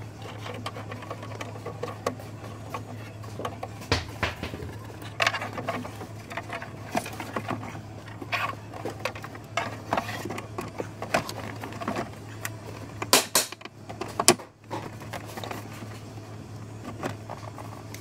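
Plastic glovebox and dashboard trim being handled and fitted into the dash: scattered clicks, knocks and rustles, with a few sharper snaps about 13 and 14 seconds in, over a steady low hum.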